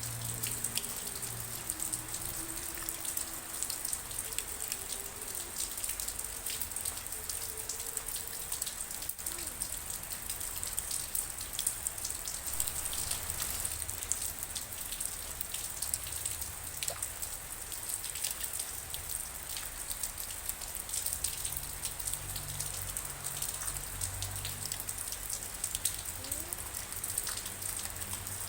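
Steady rain, with many separate drops clicking and pattering close by. Faint low held tones sound under the rain for the first several seconds and again near the end.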